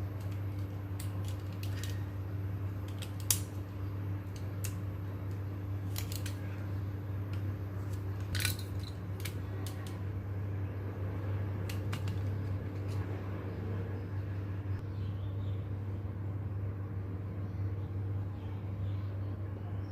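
Scattered sharp clicks and taps of small toy-robot parts being handled during a repair, over a steady low hum. The loudest click comes about three seconds in, another about eight seconds in.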